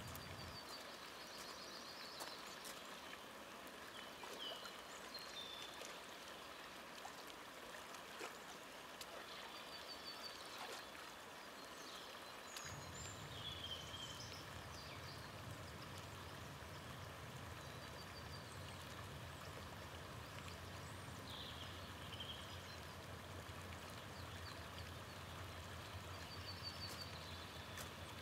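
Steady rushing of a flowing river, with short high chirps now and then and a few faint clicks. A low rumble under it drops away just after the start and returns about halfway through.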